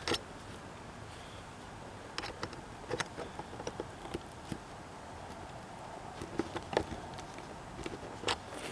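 Scattered light clicks and taps of hose-clip pliers and gloved hands working a spring hose clip back onto a turbo intake hose, over a faint steady hiss.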